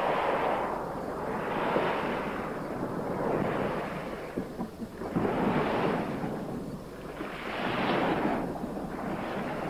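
Sea waves breaking and washing up a pebble beach, the surf swelling and falling away in repeated surges every couple of seconds.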